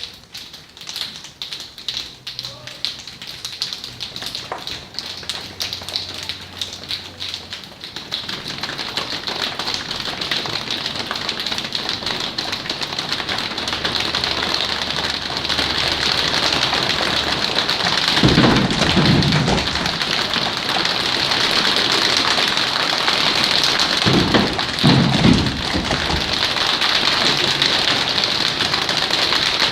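A class of schoolchildren imitating a rainstorm together: scattered taps build up into a dense, steady patter like heavy rain, with two heavy low thumps like thunder, about two-thirds of the way in and again near the end.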